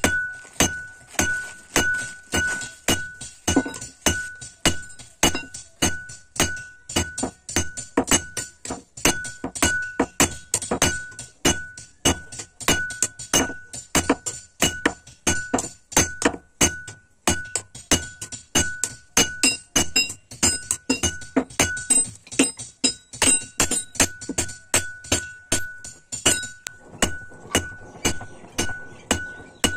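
A hand hammer forging a red-hot steel knife blank on a railway-rail anvil: steady blows about two a second, each with a clear metallic ring.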